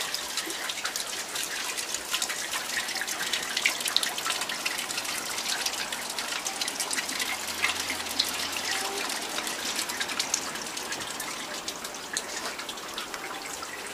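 Rainwater dripping just after a shower has ended: a steady patter of many small drops over a light hiss.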